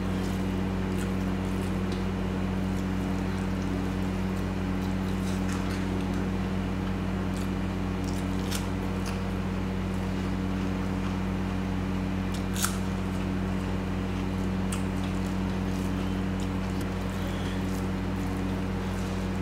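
Close-miked eating of mutton curry and rice: wet chewing and squishing with scattered small mouth clicks and one sharper click about two-thirds of the way through, over a steady low hum.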